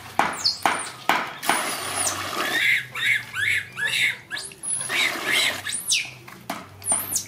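A pet monkey's high squeaky chirps and squeals, a run of short calls that rise and fall about twice a second through the middle, over sharp splashes of water in a plastic baby bath.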